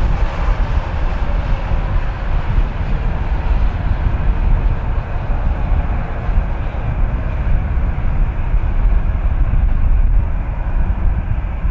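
Strong wind buffeting the microphone with an uneven low rumble, over the steady engine noise of a distant four-engine jet airliner on approach.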